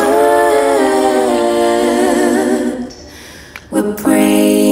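Background music: a singing voice holding long notes with vibrato, pausing briefly about three seconds in and then coming back in.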